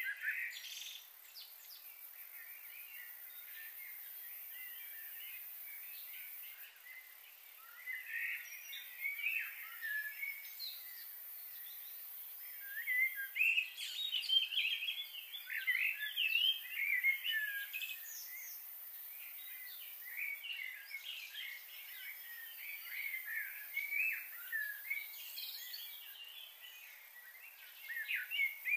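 Small birds chirping and twittering in quick, overlapping calls, sparse for the first few seconds and busiest from about a quarter of the way in, over a steady faint high hiss.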